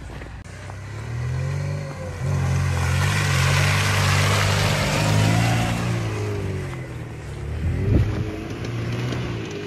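Lada Niva 1.7's four-cylinder petrol engine revving under load as the car drives through mud and slushy snow, with a rushing noise of the tyres churning the ground that swells in the middle. A short, sharp thump comes near the end.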